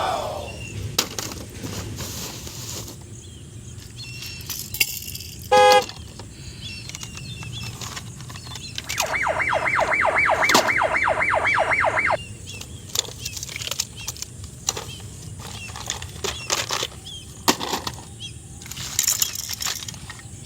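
Toys being handled, with scattered plastic clicks and knocks. About five and a half seconds in there is a short electronic beep. Near the middle a rapid electronic warble pulses about five times a second for about three seconds, then stops suddenly.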